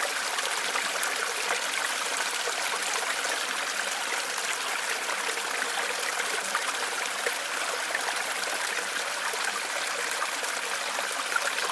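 Small stream running steadily, water trickling and babbling over stones with a continuous bright splashing hiss.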